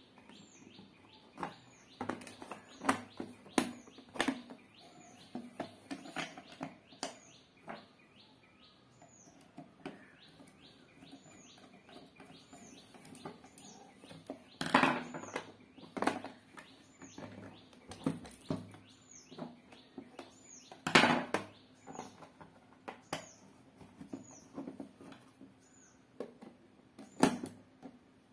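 Hard plastic clicks and knocks as the cover of an extension box is handled, pressed down and fitted back on over a wooden table, the loudest knocks about halfway through and again some seconds later. A bird chirps over and over in the background, about once a second, above a low steady hum.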